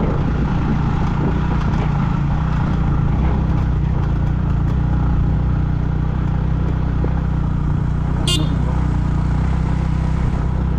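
Yamaha MT-15's single-cylinder engine running steadily under way, over a steady rushing noise. A very short high chirp or toot sounds about eight seconds in.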